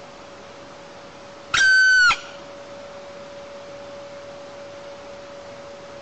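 Black woodpecker giving one loud, long call about one and a half seconds in, a clear held note that drops slightly at its end.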